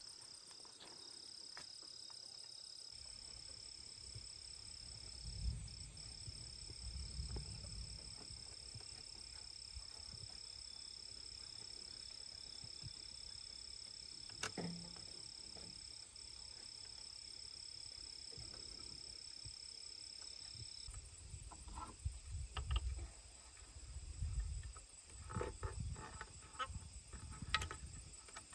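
Steady high-pitched insect chirring made of two drones at different pitches, the lower one stopping about two-thirds of the way through. Scattered knocks, scrapes and rustles come from hands working bamboo poles and binding wire, thickest near the end.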